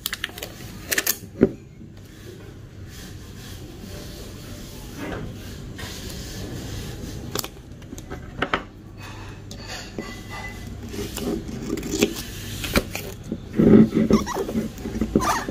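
Roasted coffee beans being tipped from a foil bag into a glass clip-top jar: crinkling foil and scattered clicks of beans on glass. Near the end come several louder clacks as the jar's wire-clamp glass lid is handled.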